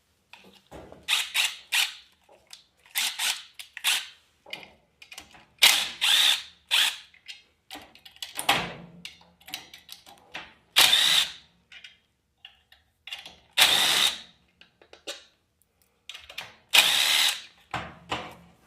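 Handheld power drill/driver run in about a dozen short spurts with brief pauses, spinning fasteners out of the heater's housing to get at the rear filter.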